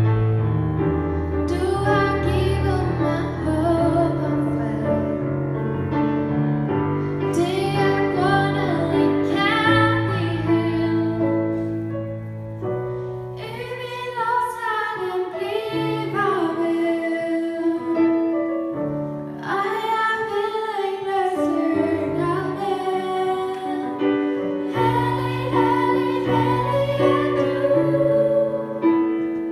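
Two girls singing a Danish song with keyboard accompaniment; one sings alone at first, and the second joins in harmony partway through.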